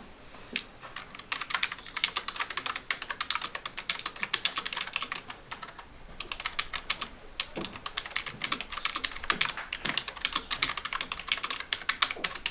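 Rapid typing on a computer keyboard, fast keystroke clicks with a brief pause about halfway through.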